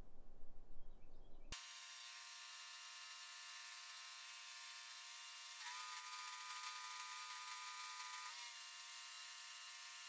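Stick welder's arc buzzing steadily with a hissing crackle as a weld is run on the steel dump body; it gets louder about halfway through. A short rustling noise comes before it starts.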